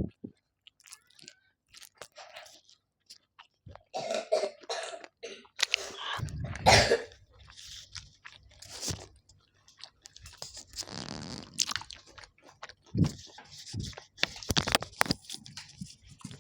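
A person eating close to the microphone: irregular crunchy bites and chewing, with sharp little clicks and short bursts of crunching.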